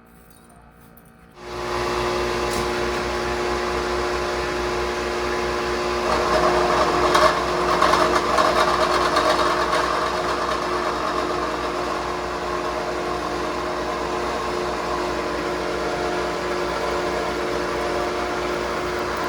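An electric machine-tool motor starts a little over a second in and runs steadily with a fixed hum and whine. A louder cutting noise swells for a few seconds in the middle.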